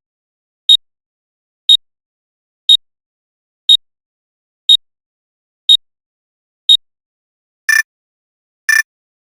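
Sharp, short ticks, evenly one a second, like a clock or countdown timer sound effect; about eight seconds in the tick changes to a lower, fuller click at the same pace.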